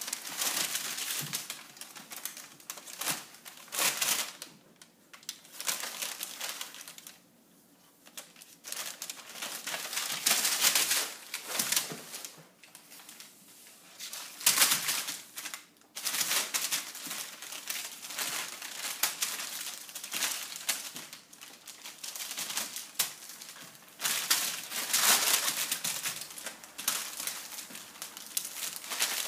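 Brown paper bags crinkling and rustling as kittens pounce, roll and wrestle on them, in irregular bursts with a few short quiet spells.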